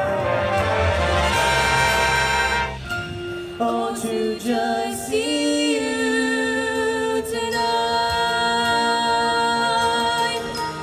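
Marching band playing a field show: a loud full-band swell with low drums for the first three seconds, then quieter sustained brass and wind chords that change a few times.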